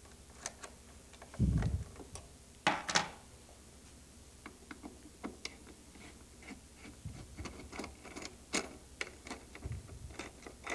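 Scattered small metal clicks and ticks as screws and the retaining bands are worked off the end of an electric pump motor, with a dull thump about one and a half seconds in and a short rattle about a second later.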